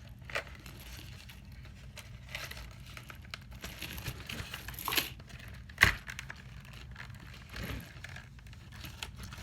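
Close-up handling noises of a plastic zip tie being threaded through a hole in a cork log: light rustling and scattered small clicks, with one sharp click about six seconds in and a dull thump a little before eight seconds.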